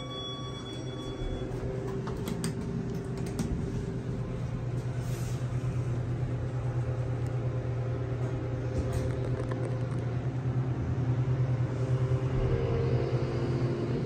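Kone Series 220 hydraulic elevator: a chime rings out and fades in the first second, then a steady low hum of the hydraulic pump unit grows louder as the car travels up, with a few knocks of the doors and cab along the way.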